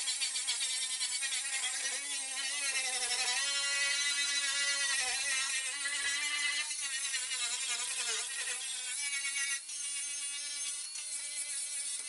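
Toolpro 18V cordless angle grinder working on car body steel: a steady whine that wavers and sags as the disc is pressed in and eased off, over a hiss of abrasion. The whine dips low around eight seconds in and briefly drops away shortly before ten seconds.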